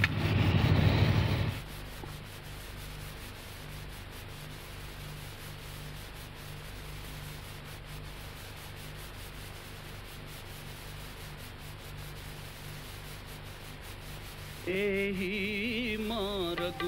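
A match struck to light a prayer lamp: a rasping scrape lasting about a second and a half, followed by a quiet low hum. Near the end a voice begins singing a devotional chant.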